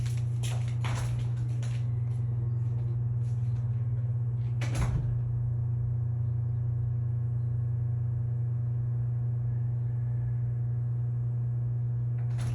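A steady low hum throughout, with a few light knocks in the first couple of seconds and a sharper knock about five seconds in.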